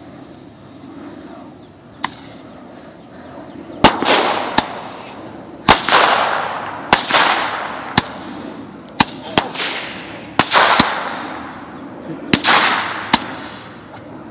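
Hand-held Roman candle firing: a sharp pop about two seconds in, then from about four seconds a shot every second or so, each pop followed by a fading hiss.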